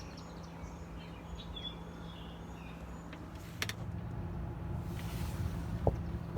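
A quiet room with a steady low hum and faint high chirping during the first few seconds. A sharp knock on the door comes at the very end.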